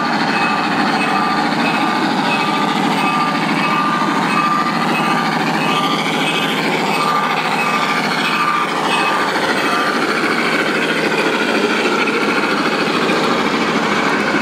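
G scale model train running along the layout, a steady rolling noise over the hall's background, with a short high tone repeating a little over once a second until about eight seconds in.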